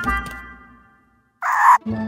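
Cartoon background music playing a few notes that fade away within the first second. After a brief gap comes a short, loud noisy sound effect, and a new held low note starts near the end.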